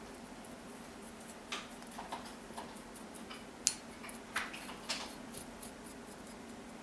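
Scattered light clicks and taps of small hard parts being handled, the sharpest a little past halfway, over a steady low hum.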